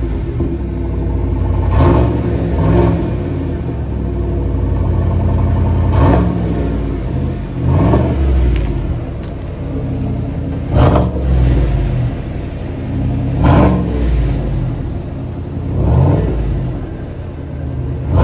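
A 6.2-litre L87 V8 through a GM cat-back performance exhaust on a GMC Sierra 1500, idling between repeated quick throttle blips. Each rev rises and falls back to idle, about one every two to three seconds.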